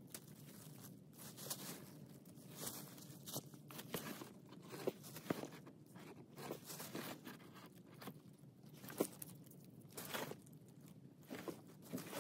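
Dry fallen leaves, twigs and soil crackling and rustling as hands dig through the leaf litter, in irregular crunches with a few sharper ones in the middle.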